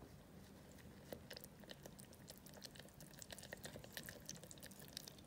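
Faint, irregular small clicks and wet scrapes of a fork stirring a yogurt, milk and egg mixture into flour in a stainless steel bowl, the clicks picking up about a second in.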